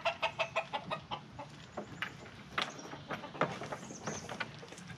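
Chickens clucking: a quick run of short clucks in the first second, then scattered single clucks.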